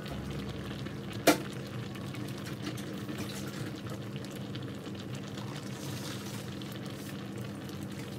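A pot of fish in vinegar and coconut milk simmering with a steady bubbling. One sharp knock comes about a second in.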